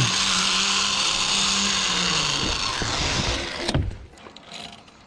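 Zip-line trolley pulley running along the steel cable: a loud whirring hiss with a low hum that drops slightly in pitch as the ride slows. It stops with a single thump about three and a half seconds in as the rider reaches the tree platform, followed by quieter rustling.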